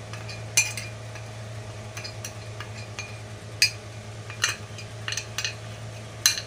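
Several sharp clicks and taps as a clear container and a spoon knock against an enamel basin while dry spice powders are emptied onto minced mutton, over a steady low hum.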